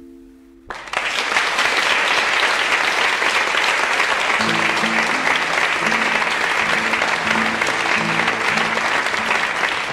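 The last guitar chord of the song fades out, and under a second in an audience breaks into loud applause that carries on throughout. From about halfway, low repeated notes sound beneath the clapping.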